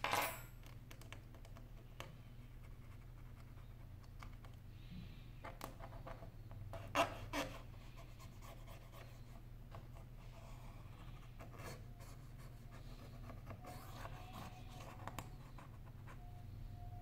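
Light scratching and scattered sharp clicks of a thin tool and fingertips working on the inside of an opened iPhone 7, the loudest a pair of clicks about seven seconds in, over a steady low hum.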